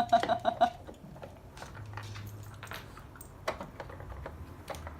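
Light plastic clicks and taps of a Dog Casino treat puzzle as a dog noses and paws at its drawers, scattered and irregular, with a sharper tap about three and a half seconds in.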